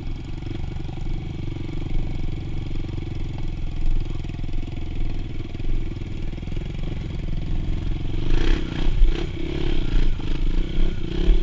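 Dirt bike engine running steadily while under way, heard from the bike itself, with a run of knocks and rattles in the last few seconds.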